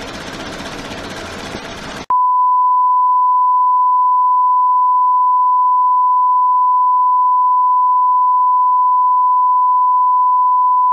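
A dense, rough noise stops abruptly about two seconds in, and a steady 1 kHz test tone, the kind that goes with colour bars, takes over as one loud, unbroken beep.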